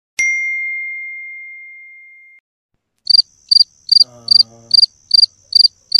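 A single bright ding that rings out and fades over about two seconds. After a short silence, a cricket chirps steadily, eight high chirps at about two a second.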